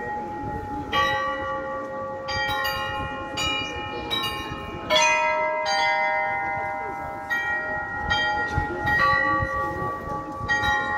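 Small tuned bells of the Olomouc astronomical clock's chime playing a slow melody, one note after another at uneven spacing, each note ringing on under the next. The loudest strike comes about halfway through.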